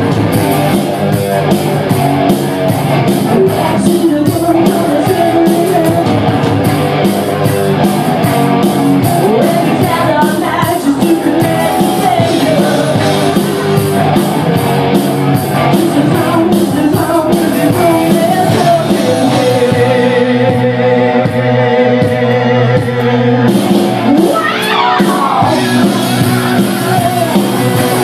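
A live rock band playing a song with singing, electric guitar and drums played on an electronic drum kit. The drum hits are dense and steady, drop out for a few seconds about two-thirds of the way through, then come back.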